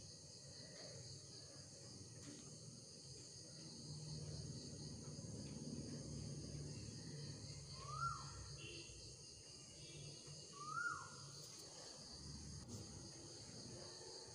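Faint steady chirring of crickets, with two short bird calls, one about eight seconds in and another about three seconds later.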